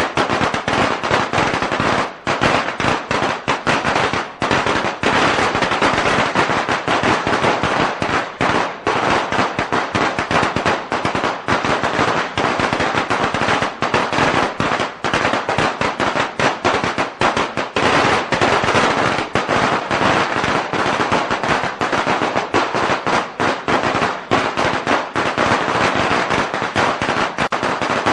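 A long string of firecrackers going off: a dense, rapid, unbroken run of sharp bangs, many per second.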